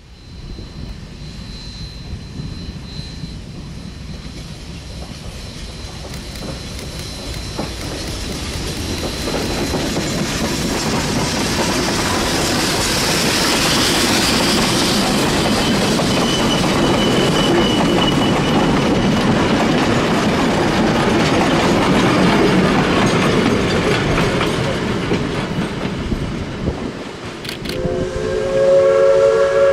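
Steam locomotive pulling a short freight train past at close range, its running gear and the cars' wheels on the rails growing louder as it nears, then the freight cars clacking by. About two seconds before the end, a steam whistle starts blowing, several tones sounding together.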